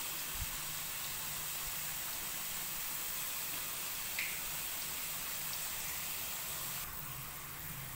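Raw potato slices deep-frying in hot oil in a metal kadai: a steady, even sizzle as the moisture boils out of the fresh slices and the oil bubbles hard. The sizzle drops a little about seven seconds in.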